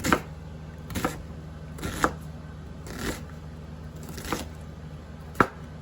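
Knife chopping vegetables on a cutting board, single strokes about once a second.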